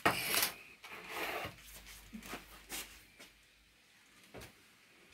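Kitchen handling clatter as grated zucchini goes into a stand mixer's steel bowl: a sharp clatter at the start, then softer scraping and a few light knocks that die away. The mixer is not running.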